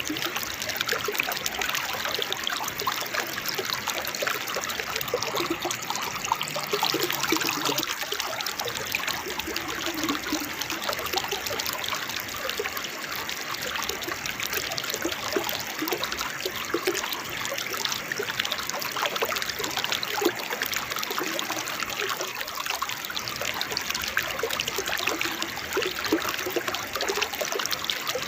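Water babbling and splashing down a small forest waterfall: a steady rush with small gurgles scattered through it.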